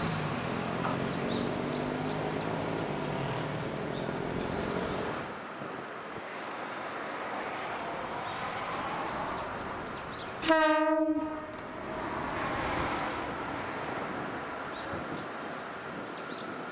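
Kominato Railway diesel railcar running, its engine note falling over the first few seconds, then one horn blast about ten seconds in that lasts just over a second.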